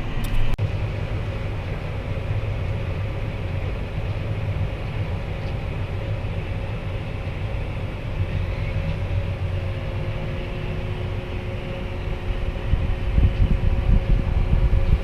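Truck engine running steadily, heard from inside the cab, with a low rumble and a faint steady whine; the rumble grows louder over the last couple of seconds.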